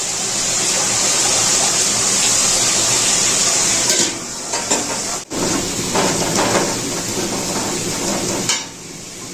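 Kitchen work: a steady hiss for about four seconds, then irregular clattering of kitchenware, quieter near the end.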